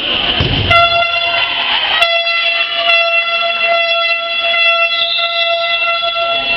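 Sports-hall scoreboard horn sounding one long, steady electronic blast that starts about a second in and lasts about six seconds, the signal that stops play.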